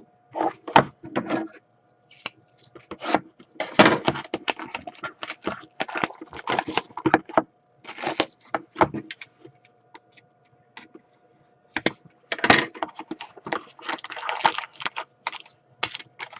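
Hockey trading cards and their pack wrappers being handled: irregular bursts of crinkling, rustling and sharp clicks as packs are opened and cards are slid and set down.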